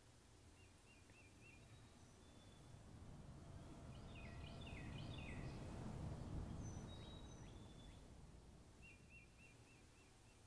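Faint birdsong: short chirps and trills, in bursts near the start, through the middle and again near the end, over a low rumble that swells and fades around the middle.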